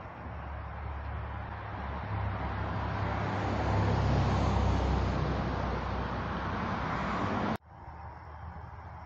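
A car passing by, its road noise swelling to a peak about four seconds in and then easing off, cut off suddenly near the end, after which only faint outdoor background remains.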